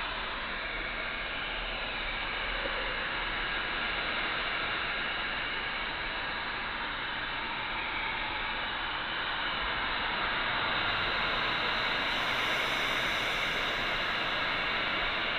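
Heat gun blowing a steady hiss, warming a stiff old new-old-stock tire to soften the rubber for mounting. From about eleven seconds in, the hiss gets brighter and a little louder.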